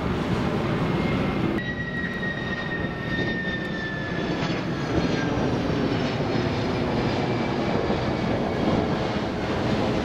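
Jet aircraft passing overhead: a steady rumbling hiss with an engine whine that slowly falls in pitch. The sound changes abruptly about a second and a half in.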